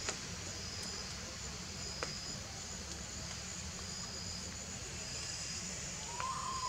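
Outdoor ambience: a steady hiss with a short, high insect chirp repeating about once a second, a faint click twice, and a brief whistle-like tone near the end.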